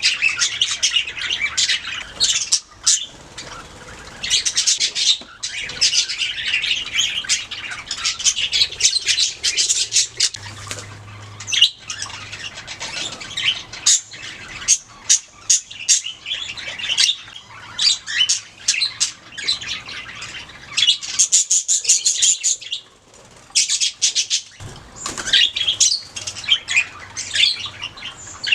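Budgerigars singing: a steady flow of quick chirps, warbles and harsh rasping squawks, pausing briefly a few times.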